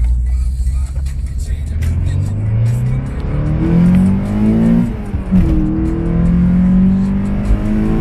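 Volkswagen Golf Mk2 GTI's 1.8-litre 16-valve four-cylinder engine pulling under acceleration, its revs climbing steadily. About five seconds in the revs drop sharply, then rise again and hold.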